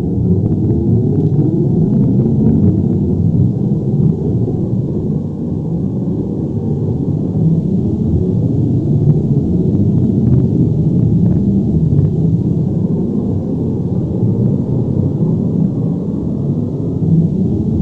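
Earthquake/avalanche rumble sound effect: a deep, steady low rumble with a few faint crackles above it.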